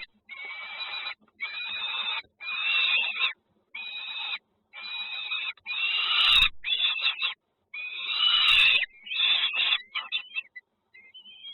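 Nestlings begging in the nest with a run of harsh, raspy calls, each under a second long, with short gaps between them. Two sharp knocks come in the middle, and near the end there is a fainter, thinner call.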